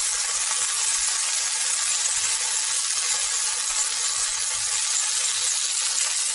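Tofu slices sizzling in hot oil on a grill pan, a steady, even hiss.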